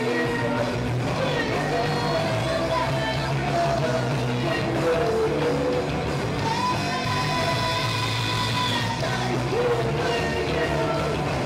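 A rock band playing live: a woman sings lead over electric guitar, bass guitar and drums.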